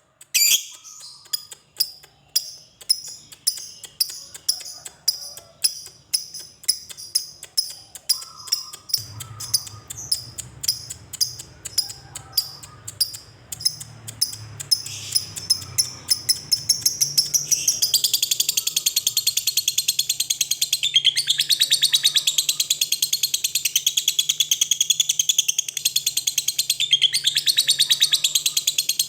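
Lovebird calling: sharp, separate high chirps that come faster and faster ('ngetik'), then about two-thirds of the way through they run together into a long, unbroken rapid chatter, the 'ngekek' trill that lovebird keepers prize.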